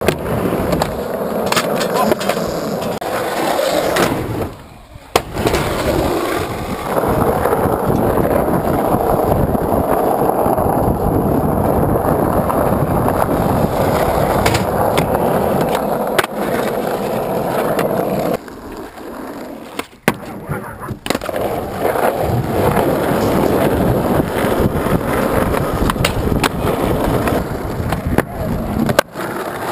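Skateboard wheels rolling over smooth pavement, with sharp clacks of the board popping and landing several times as tricks are done.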